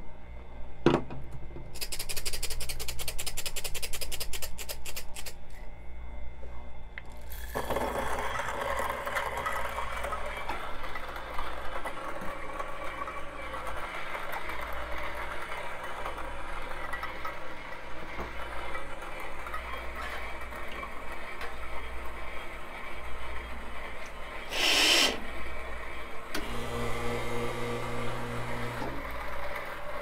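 Coffee beans rattling into an electric grinder, then the grinder running and grinding them for about eighteen seconds, with one sharp knock near the end. The motor then runs on with a steadier hum for a few seconds.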